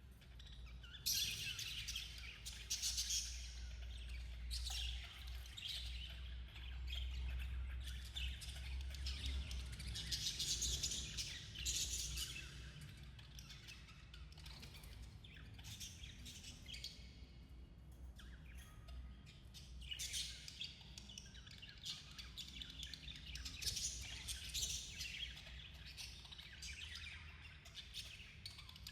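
Budgerigars chirping and chattering in dense, overlapping bursts, busier in the first few seconds, about ten seconds in, and again through the last third, with a quieter spell in the middle. A steady low rumble runs underneath.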